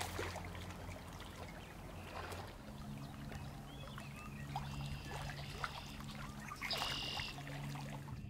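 Large carp spawning in shallow reedy water, thrashing at the surface: continuous sloshing and splashing with many small splats. A steady low hum runs underneath, and two short high calls come in near the middle and about seven seconds in.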